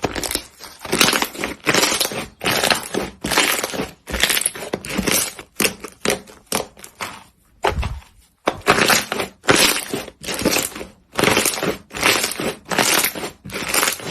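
Slime being squeezed and pressed by hand, crackling with each press about twice a second, with a pause of about a second just past the middle.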